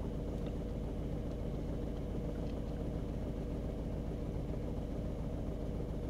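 Seat Ibiza's three-cylinder petrol engine idling roughly, heard from inside the cabin as a steady low rumble. It is running on two cylinders because cylinder 1 is misfiring.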